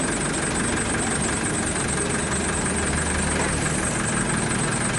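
Tour bus engine idling steadily, with a steady high-pitched buzz over it.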